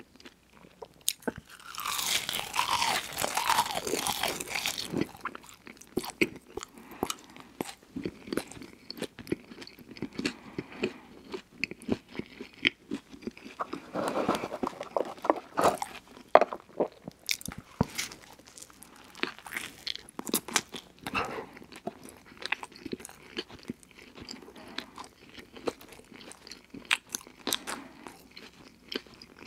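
Close-miked eating sounds: French fries and then a burger being bitten and chewed, with crunching and wet mouth clicks. Two louder stretches of crunching come a couple of seconds in and around the middle.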